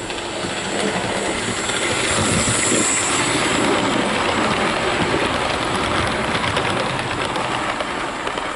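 Hornby OO-gauge model train, the Duke of Gloucester steam locomotive hauling six maroon coaches, running past on model railway track. The rumble and clatter of its wheels on the rails builds over the first two seconds and eases near the end, with quick clicking while the coaches go by.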